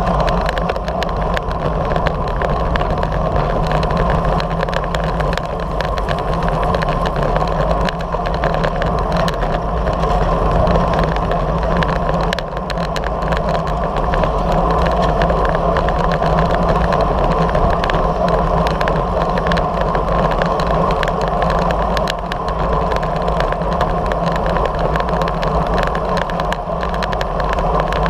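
Steady rush of wind and road noise on the microphone of a camera mounted on a moving road bike, loud and unbroken, with no clear passing events.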